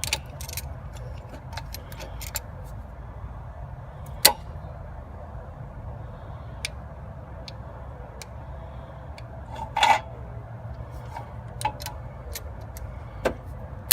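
Scattered clicks and knocks of hand tools working on a disc brake caliper as its piston is slowly pushed back into its bore, over a steady low rumble. The sharpest knocks come about four seconds in and again about ten seconds in.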